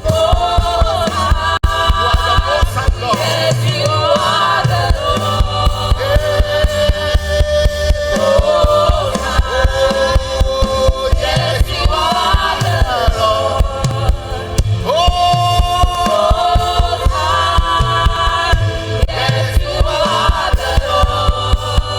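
Live gospel worship music: voices singing together over a band with a steady, regular drum and bass beat.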